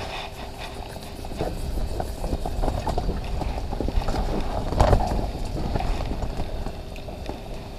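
Handling noise as a small sunfish is pulled up through the ice hole and swung in: clothing and shelter fabric rustling with irregular light taps and knocks, one louder knock about five seconds in. A faint steady hum runs underneath.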